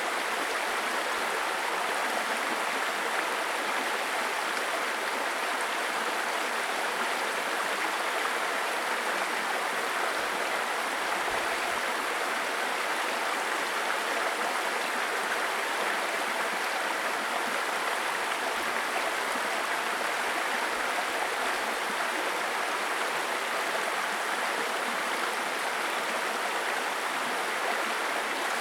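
Small stream babbling and gurgling over stones in a steady rush of water that does not change.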